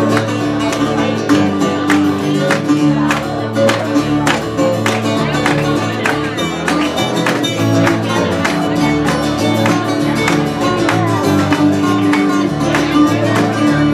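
Small acoustic band playing live: strummed acoustic guitars and a resonator guitar over a steady strumming rhythm and changing bass notes.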